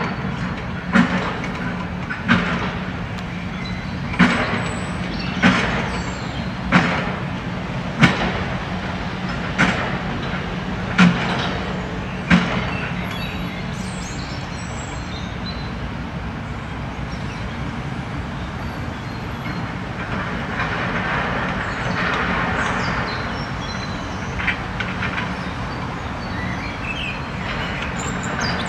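Takeuchi TB2150R compact excavator's diesel engine and hydraulics running steadily, while its bucket knocks sharply about nine times, roughly once every 1.3 seconds, in the first twelve seconds as debris is shaken out over a skip. The machine then runs on without knocks, working a little harder for a few seconds past the middle.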